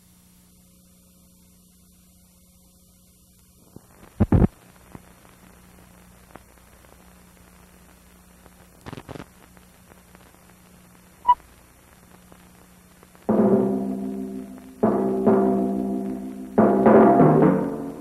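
Old film soundtrack: a steady mains hum with loud pops and clicks over the countdown leader, and a short beep about eleven seconds in. Music then enters with three loud struck chords, each ringing and fading, about a second and a half apart.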